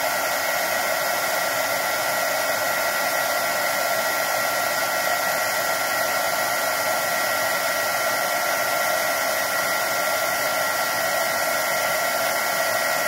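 Heat gun blowing steadily, a constant rush of hot air with a thin high whine, held over a BGA chip on a circuit board to reflow its fatigued solder joints.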